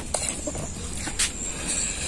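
Close-up noodle-eating sounds: chewing with a fork working in the noodles and bowl, with two sharp clicks about a second apart.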